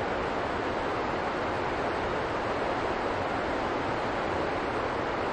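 Steady rushing of a mountain river: an even, unbroken wash of water noise with no separate events.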